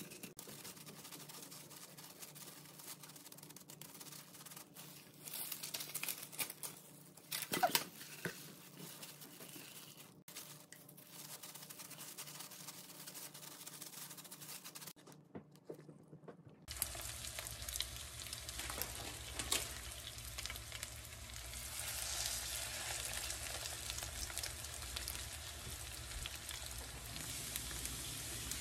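Gloved hands squishing and shaping a shrimp mixture in a stainless steel bowl, with a few clicks against the bowl. About 17 seconds in, this gives way to shrimp and portobello mushroom patties sizzling steadily in hot oil in a frying pan.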